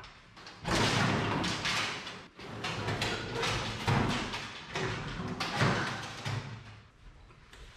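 Irregular series of thuds and knocks, several loud bursts close together, fading near the end.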